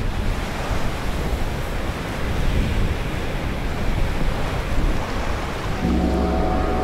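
Sea surf washing in at the shoreline with wind on the microphone, a steady rushing noise. Music with sustained tones comes in near the end.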